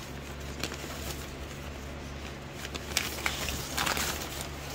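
Tissue-paper wrapping rustling and crinkling as it is pulled off a shipped potted orchid by hand, with a cluster of louder crinkles about three to four seconds in.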